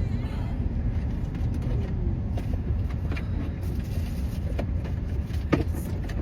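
Steady low rumble of a running car heard from inside the cabin, with a few light clicks and knocks from someone rummaging through the car for something to wipe with.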